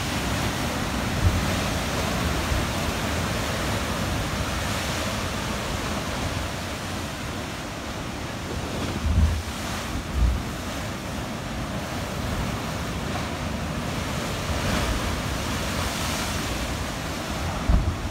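Ocean surf surging and foaming through a channel among coastal rocks: a steady rush of churning white water. Wind buffets the microphone in a few short low thumps, about a second in, twice around nine to ten seconds in, and again near the end.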